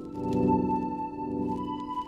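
Slow ambient synth chords held and swelling, the instrumental intro of a song, without drums.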